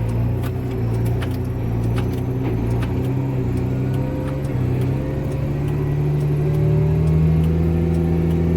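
Tractor engine running under way, pulling a loaded chop box, its pitch rising a little as it speeds up past the middle. Scattered light clicks and rattles run over the engine sound.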